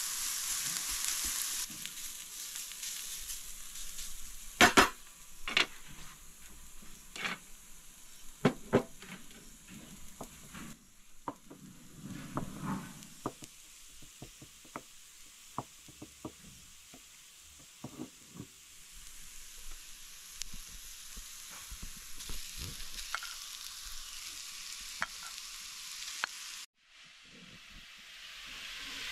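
Grated carrot and onion sizzling in oil in a frying pan as a wooden spatula stirs them. Then a run of sharp, irregular clicks, the loudest about five seconds in, as a wooden stick mixes minced meat in a glass bowl. The frying sizzle rises again near the end.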